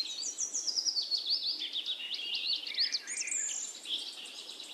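Small birds chirping in quick, high, repeated notes, several overlapping at once.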